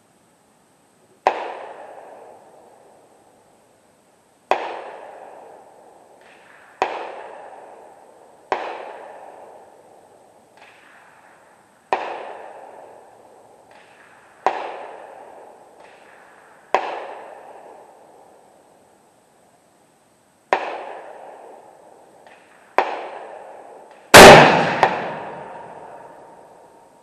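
Rifle shots on a shooting range: a sharp crack every two to three seconds, each trailing off in an echo, then one much louder, close shot near the end, followed by a steady tone.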